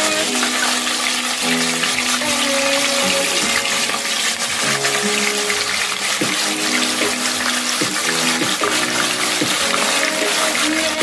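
Whole red snapper deep-frying in hot oil in a cast-iron skillet: a steady, loud sizzle with dense crackling, with background music with held notes underneath.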